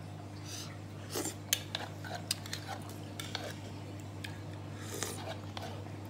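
Metal spoon and fork clinking and scraping against a ceramic bowl while eating noodle soup, in scattered short clicks.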